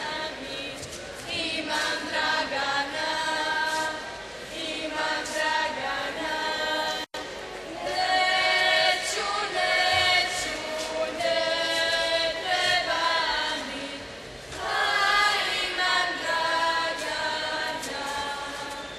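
Traditional Herzegovinian folk song sung a cappella by a group of women, in long held phrases with short breaks between them. The sound cuts out for an instant about seven seconds in.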